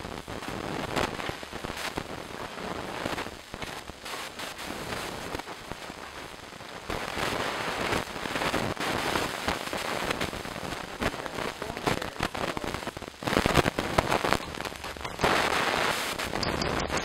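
Cherries and strawberries being stirred in a pot for jam: the spoon scrapes and clicks against the pot through the wet fruit, over a steady hiss with many small clicks. It grows louder in the last few seconds.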